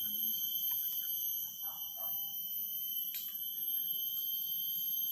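Steady high-pitched whine of forest insects such as cicadas, with a faint distant animal call about two seconds in and a single click a little after three seconds.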